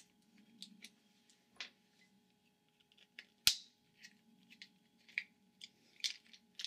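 Quiet, scattered small clicks and taps of a screwdriver working screws and handling the hard plastic switch housing of a Kärcher pressure washer, with one sharper click about three and a half seconds in and a run of small clicks near the end.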